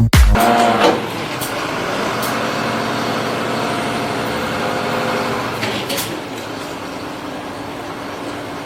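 Steady mechanical hum of a vehicle engine running, easing off slightly in the second half, with a few faint clicks.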